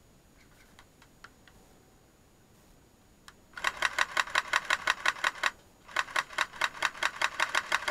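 Airsoft electric rifle firing on full auto: two bursts of rapid, evenly spaced shots, each about two seconds long with a short pause between them, starting a little over halfway in.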